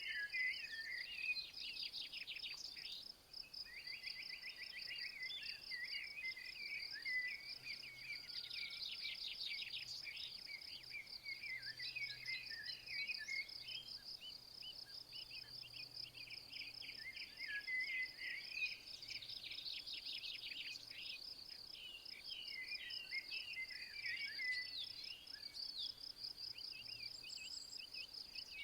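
An insect chirping in a steady, rapid, high-pitched pulse throughout, with a songbird singing repeated phrases of trills and warbles over it.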